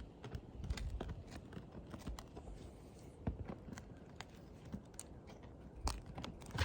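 Irregular clicks, taps and scrapes of a nail puller working a roofing nail out of degranulated asphalt shingles.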